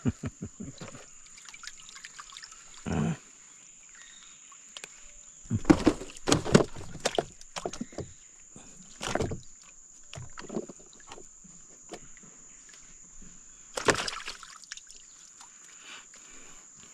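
Water sloshing and splashing, with scattered knocks, the loudest cluster about six seconds in and another near the end, over a steady high-pitched insect drone.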